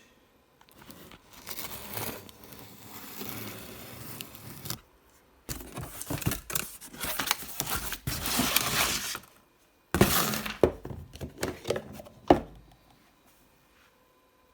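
A parcel being unpacked by hand: its packaging rustles, tears and crinkles in several bursts, then handling clicks and one sharp knock near the end.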